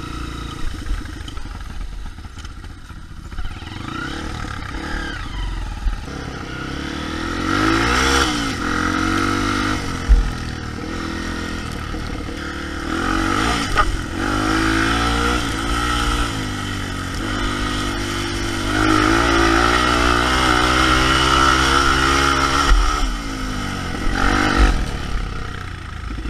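Single-cylinder four-stroke Honda trail bike engine on the move, revving up and easing off several times over a grassy dirt trail. A couple of sharp knocks and rattles come from the bike over bumps.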